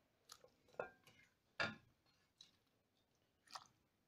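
A few short, faint clicks and scrapes of a serving utensil against the pot and bowl as cooked beans are dished up, the loudest about a second and a half in.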